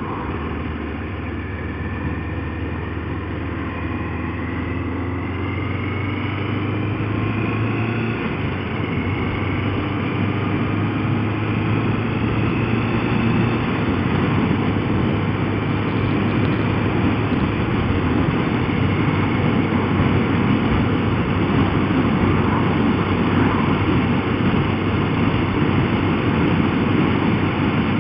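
Motorcycle engine running under way, mixed with wind rush on a helmet-mounted camera's microphone. The engine note climbs over the first several seconds as the bike accelerates, and the overall noise grows louder as speed builds.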